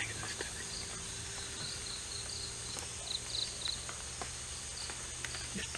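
Forest ambience dominated by insects: a steady high-pitched drone with short repeated chirps, over a low steady hum and a few faint clicks.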